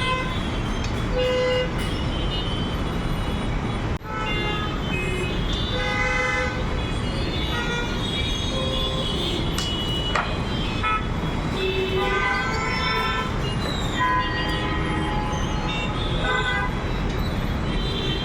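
Jammed road traffic: a steady rumble of engines with many vehicle horns honking in short, overlapping toots throughout.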